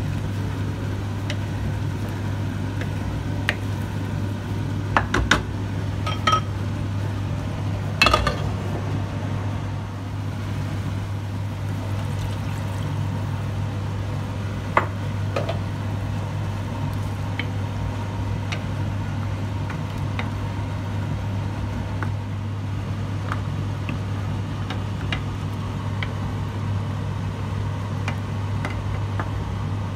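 Wooden spoon knocking and clinking now and then against a pan while a thick tomato curry is stirred, a few sharp knocks close together about a third of the way in and one more about halfway. A steady low hum runs underneath.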